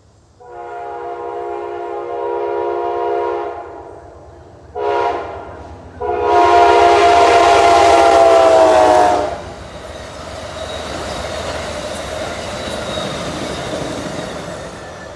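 Amtrak passenger train's multi-note locomotive horn blowing for the grade crossing: a long blast, a short one, then a long one, the last the loudest. Then the train passing over the crossing, a steady rush and rumble of wheels on rail.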